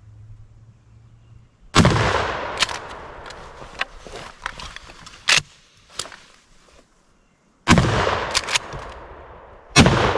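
Three turkey-hunting shotgun shots, each a sharp blast that echoes away. The first comes about two seconds in, and two more follow close together, about two seconds apart, near the end, fired at a gobbler as it jumps up and flies off. A few smaller sharp knocks sound between the first and second shots.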